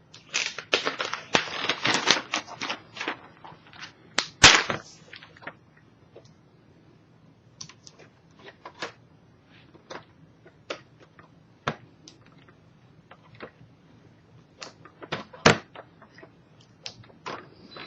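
Protective plastic film being peeled off a new laptop LCD panel, crackling densely for a couple of seconds. Then comes one loud sharp snap, followed by scattered light plastic clicks and snaps as the laptop's plastic parts are handled.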